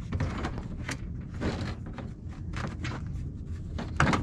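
Plastic front bumper cover of a Scion xD being pulled off by hand: scattered clicks and knocks from its clips and panel, with one loud snap about four seconds in, over a steady low rumble.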